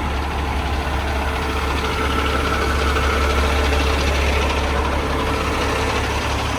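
Semi truck's diesel engine idling steadily, a deep even hum.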